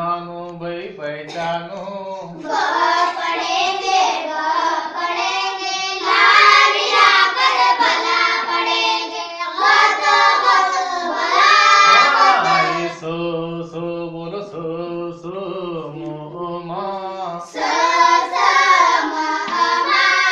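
A group of children singing together in unison, in phrases of a few seconds each. The singing has the sing-song style of a classroom recitation chant.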